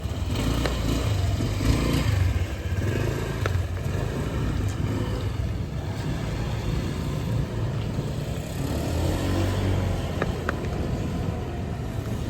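Motor vehicle engine running with a low rumble, over a steady hiss of noise from the flooded street.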